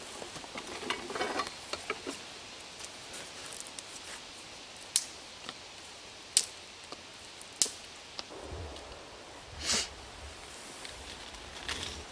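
Rustling and handling of clothing and camping gear, with four sharp clicks a second or two apart and a low rumble coming in about eight seconds in.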